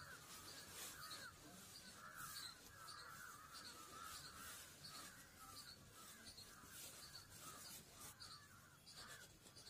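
Faint bird calls in the background: a steady string of short chirping calls, about two a second, over near silence.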